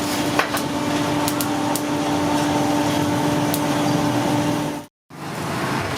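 A small motor running with a steady hum, with a few light ticks over it. The sound cuts out abruptly for a moment about five seconds in, and a different, noisier background follows.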